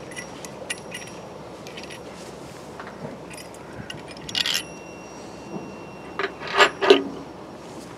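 Small metallic clinks, taps and rubbing as a brass cleat with a threaded stud is handled against a steel boat deck. About four and a half seconds in comes a sharper clink that rings on briefly, and a few louder knocks follow near the end.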